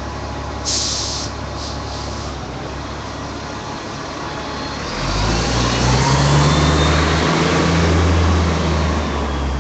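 City bus at the stop: a short hiss of air from its brakes about a second in, then its engine revs up loudly about five seconds in and keeps running.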